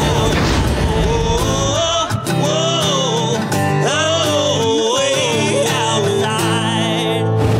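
Country song: a singing voice over guitar.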